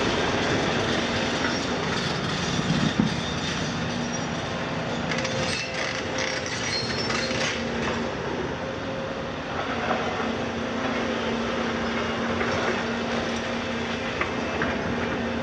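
Volvo 250 and Hitachi KMC 400 demolition excavators working a rubble pile: diesel engines and hydraulics running with a steady hum, steel buckets scraping and clanking on broken concrete, with one sharp knock about three seconds in.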